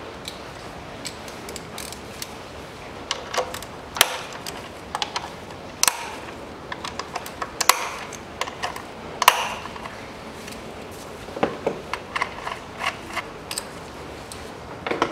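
Ratchet with a 10 mm socket clicking in short runs as the ignition coil bolts are unscrewed, with several sharp metallic clicks and knocks of the tool against the engine's coil area.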